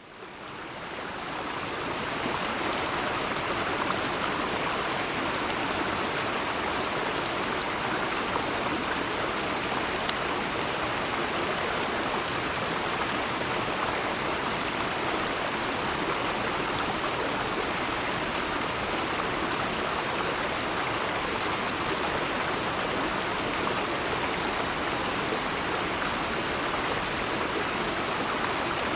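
Steady rush of running water, fading in over the first two seconds.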